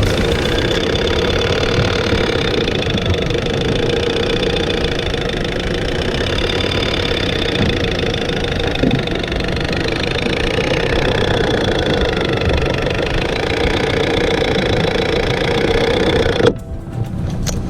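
Boat engine running steadily with a constant drone, cut off abruptly near the end.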